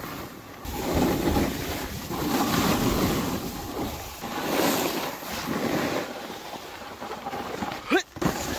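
Snowboard sliding and scraping its edges over firm groomed snow, the rushing noise swelling and fading with each turn, with wind on the microphone. A short sharp sound near the end.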